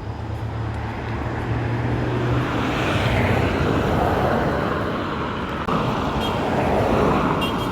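Road traffic: passing motor vehicles with engine hum and tyre noise, swelling as vehicles go by.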